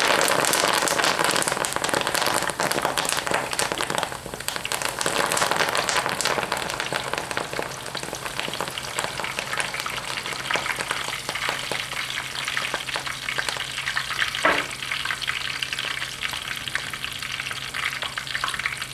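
Hot oil in a deep fryer sizzling and spattering hard around two tempura-battered curly kale leaves just dropped in, a dense crackle that eases off gradually over the following seconds as the wet batter cooks.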